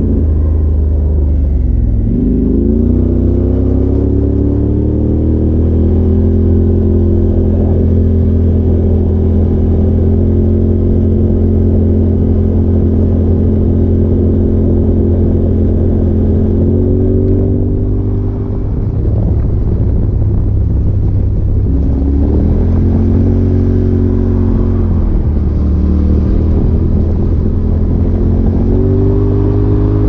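Polaris RZR Turbo side-by-side's turbocharged twin-cylinder engine running under way, heard from the cab with wind and road noise. Its pitch rises about two seconds in, holds steady for a long stretch, drops a little past the middle, then picks up again a couple of times near the end as the driver gets back on the throttle.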